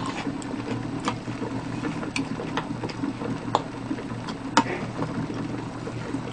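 A metal spoon stirring milk heating for ricotta in a steel pot, knocking and scraping against the pot at irregular moments, roughly once a second. A steady low hum runs underneath.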